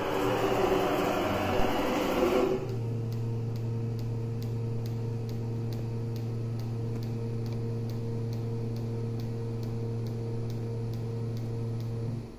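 A.M.MA. Extrema Q10 CNC router positioning its spindle head over the workpiece, with a steady low machine hum. A louder rushing noise in the first couple of seconds drops away, leaving the hum, which stops near the end.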